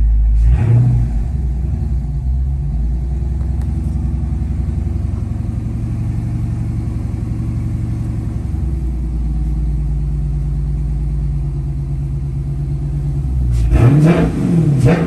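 Dodge 392 Scat Pack's 6.4-litre HEMI V8 idling steadily while still cold, then revved in a few quick throttle blips near the end.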